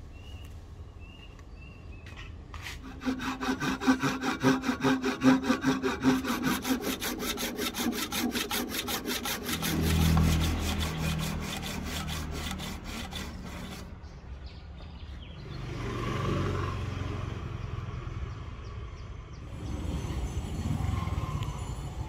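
Handsaw cutting into the end grain at the top of a rosewood axe handle, with quick, even strokes several a second. The sawing starts about three seconds in and stops about two-thirds of the way through. A low rumble rises midway.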